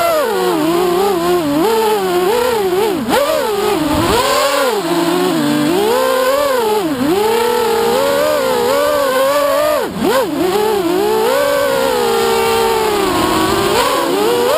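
Racing quadcopter's four brushless motors (2208 2300 kV) spinning 6-inch props, heard from the onboard camera: a loud whine whose pitch rises and falls constantly with the throttle, dropping sharply about 4, 7 and 10 seconds in as the throttle is chopped and punched again.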